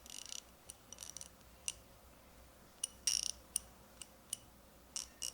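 Icon 3/8-drive 90-tooth ratchet clicking as it is worked by hand: sharp metallic clicks, some single and some in short quick runs, as the ratchet mechanism and its direction switch are tried.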